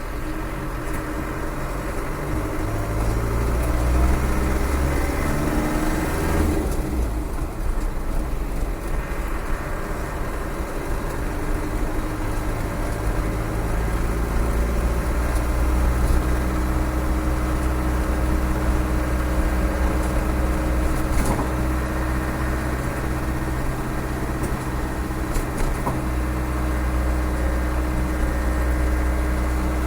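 Rebuilt Land Rover 300Tdi 2.5-litre four-cylinder turbodiesel engine pulling on the road. Its note rises over the first six seconds, drops about seven seconds in, and then runs steadily.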